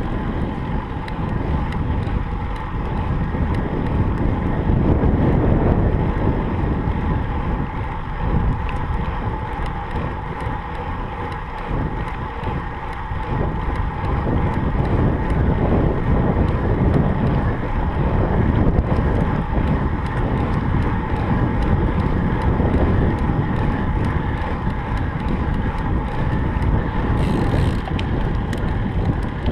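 Wind rushing and rumbling on a GoPro's microphone from fast movement during a standing sprint, loud and swelling and easing in waves.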